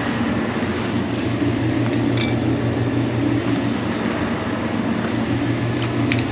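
Steady low machine hum in the garage, the background noise the owner apologises for. A couple of light clicks, about two seconds in and near the end.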